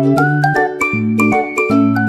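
Upbeat children's background music: a bouncy melody over a bass line with short repeating notes and a steady beat.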